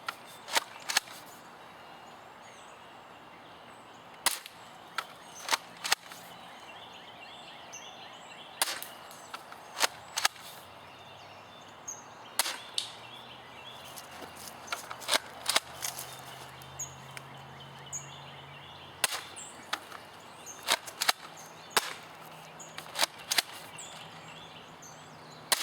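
UTG M183a2 airsoft pump-action shotgun being racked and fired shot after shot: a string of sharp plastic clacks and pops, often in quick pairs a fraction of a second apart, with irregular pauses between them.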